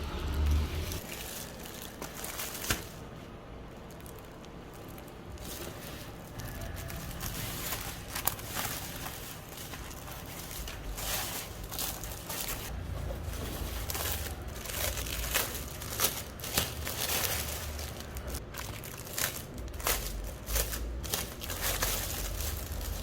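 Irregular crinkling and rustling with scattered sharp clicks, over a low rumble.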